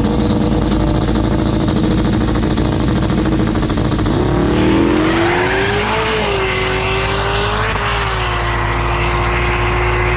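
Two drag race cars held at high revs on the starting line, then launching about four seconds in and accelerating hard down the strip. The engine pitch climbs, dips briefly twice as the cars go through the gears, then holds high as they pull away.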